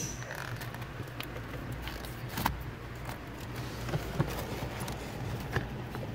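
Scattered light clicks and taps of hands handling wiring and plastic trim under a car's dashboard, over a steady low hum.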